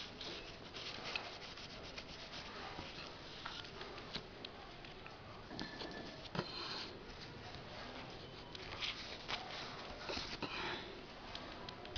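Faint, irregular rustling of tissue paper being rubbed and dabbed over a processor's surface to soak up cleaning solution and eraser residue, with a few light ticks of handling.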